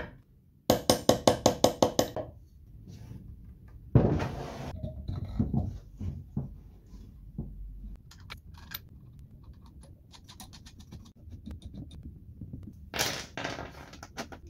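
Workshop handling noise: a quick run of about ten sharp, slightly ringing metallic taps, then a heavy knock on the plywood about four seconds in. Light clicks and clinks of steel washers, nuts and bolts being handled follow, with another short clatter near the end.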